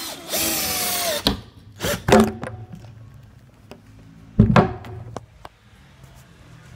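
Wooden knocks and thuds as a wooden chair and tools are handled on a table, the loudest a heavy thunk about four and a half seconds in, with lighter taps after it.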